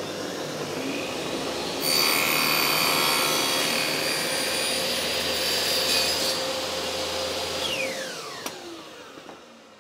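Table saw running, its blade cutting into a wooden board set 20 mm high for a notch cut. The cutting noise is louder and harsher for about four seconds from two seconds in. Near the end the saw is switched off and its blade winds down with a falling whine.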